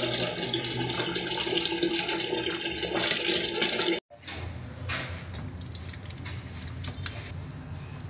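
Water pouring from the water line into a plastic bucket, a steady splashing hiss, as the line is drained. It cuts off suddenly about four seconds in, leaving quieter background with a few light metallic clicks.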